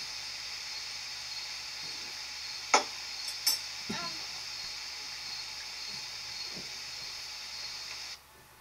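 Steady hiss with a few short, sharp clicks and knocks about three to four seconds in. The hiss cuts off abruptly near the end.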